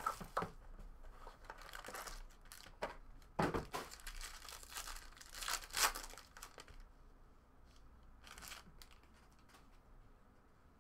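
Silver foil wrapper of a 2018 Topps Tier One baseball card pack being torn open and crinkled, in several short bursts. Near the end only faint small ticks and rustles remain.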